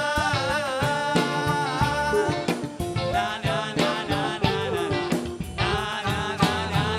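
Live band playing a song: a flute melody over electric guitar, bass guitar, keyboard and drum kit, with two voices singing.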